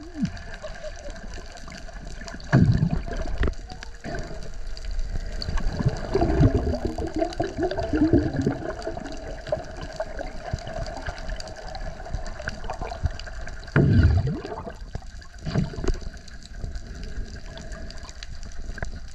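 Underwater sound picked up by a camera housing: water rushing and sloshing, with heavy low thumps twice as the camera moves through the water, over a faint steady hum.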